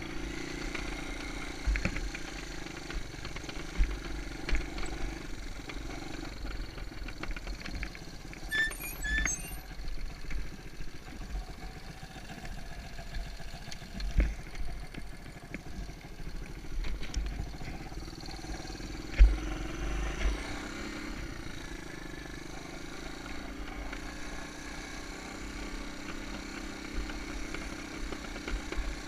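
Honda ATC 125M's single-cylinder four-stroke engine running steadily, fading away for a while and coming back louder.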